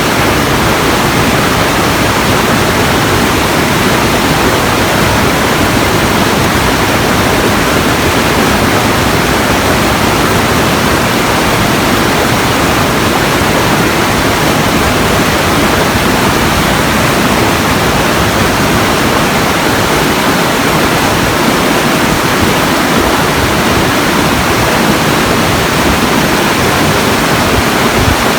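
Steady, unbroken rushing noise, even from low to high pitches, with no breaks or separate sounds.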